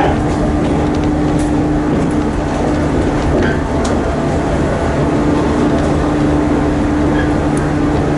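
Shinano Railway electric train running between stations, heard inside the carriage: a steady rumble of wheels and running gear. A steady hum fades out about two seconds in and comes back about five seconds in, with a few faint clicks.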